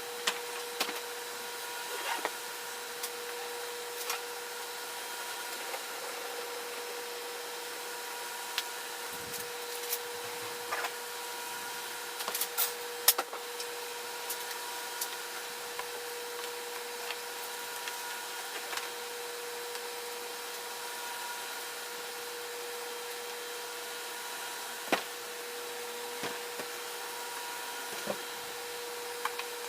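Ridgid 5-inch random orbital sander running steadily against a wooden tabletop on a 60-grit disc, its motor giving an even high whine, with scattered sharp ticks as it works.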